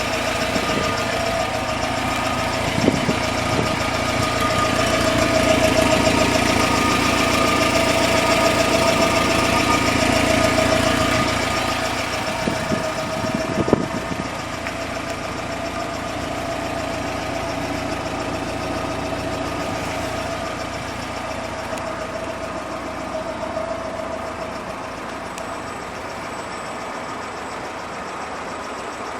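GAZ Gazelle Business's UMZ-4216 four-cylinder petrol engine idling steadily. It gets louder for several seconds in the middle, with a few short knocks, then settles lower.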